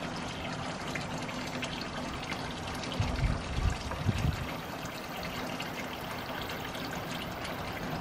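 Water pouring steadily from a garden hose into a shallow galvanized steel stock tank, splashing on the metal bottom as the tank fills. A few low rumbles come about three to four seconds in.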